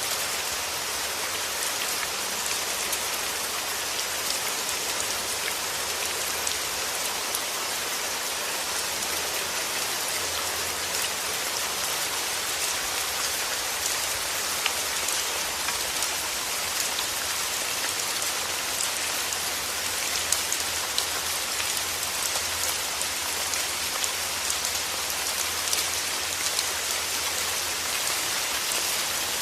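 Steady rain falling, a dense even hiss with many small drops ticking on a surface.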